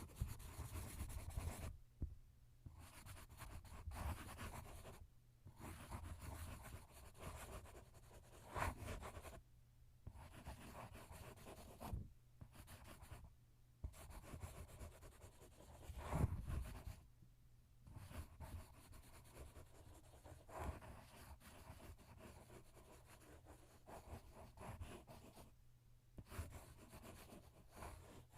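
A pen writing on paper: faint scratchy strokes in runs of a few seconds, with short pauses between them.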